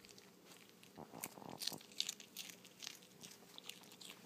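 Chihuahua crunching and chewing a potato chip: a run of irregular sharp crunches, thickest about a second in, with the loudest about two seconds in.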